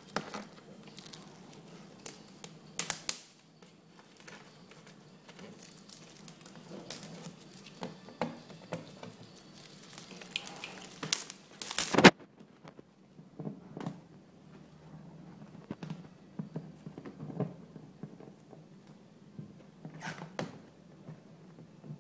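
Clear protective plastic film crinkling and crackling as it is picked at and peeled off a hard-shell suitcase. Irregular crackles run throughout, the loudest about twelve seconds in.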